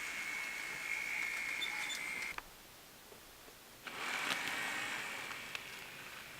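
Small electric motor of an N-scale model train's power unit running with a high steady whine and a few faint clicks. It cuts off suddenly about two seconds in, starts again about a second and a half later, then fades.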